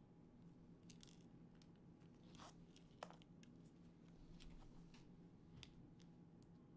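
Near silence: faint scattered clicks and short rustles of hands handling small drone parts, over a low steady hum. One sharper click comes about three seconds in.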